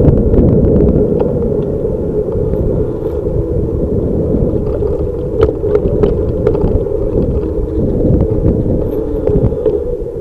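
Wind buffeting the microphone of a camera riding on a moving bicycle, over the steady rumble of the bike rolling along a paved bike lane, with scattered sharp knocks and rattles.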